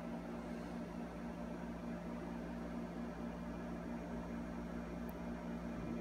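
Steady low hum with a faint hiss: room tone. No distinct sword or footstep sound stands out above it.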